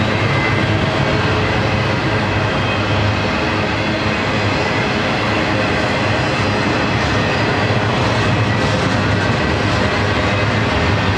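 Double-stack intermodal container train rolling past, a steady rumble of steel wheels on rail from the loaded well cars going by.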